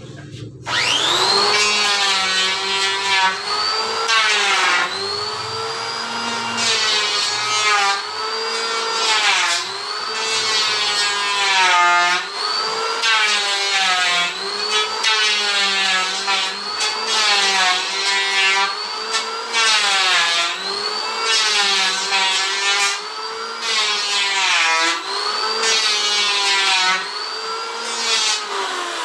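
Electric wood planer running and cutting in repeated passes, about one every two seconds: the motor's high whine sags in pitch as the blades bite into the wood, then picks back up between strokes.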